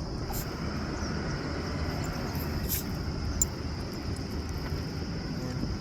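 Outdoor ambience: a steady low rumble with a continuous high insect trill over it, and a few faint clicks.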